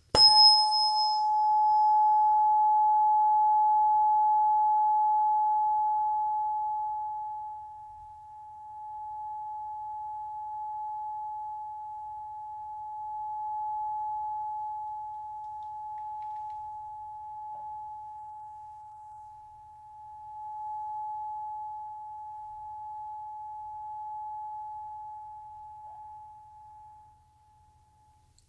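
A Solfeggio-set tuning fork struck once with a sharp metallic click, then ringing as one pure steady tone. It stays loud for about six seconds, then rises and falls in level as it slowly fades out near the end.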